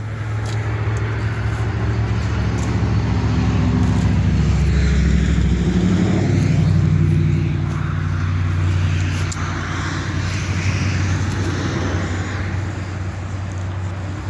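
A vehicle engine running with a steady low hum that swells a little partway through and stops abruptly at the end.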